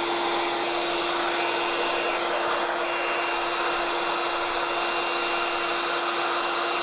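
RevAir reverse-air hair dryer running steadily, a rushing airflow with a constant hum.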